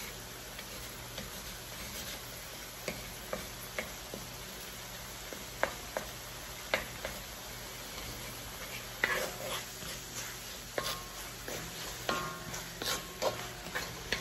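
Vegetables stir-frying in a cast-iron wok: a steady low sizzle under the clicks and scrapes of a wooden spatula tossing them against the pan. The spatula strikes come sparsely at first and grow more frequent and louder in the second half.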